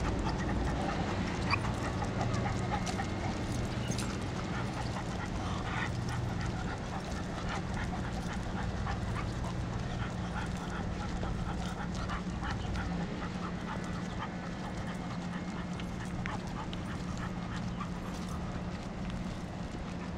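A dog whining and panting while it strains on its leash toward another dog, over a steady low hum.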